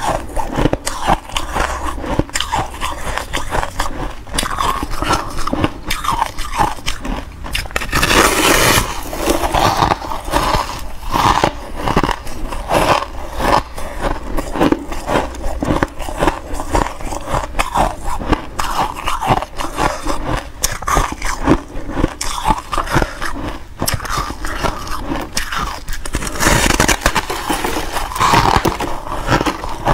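Bites into a block of freezer frost and crunchy chewing close to the microphone, a dense run of short crunches, with louder spells about eight seconds in and again near the end.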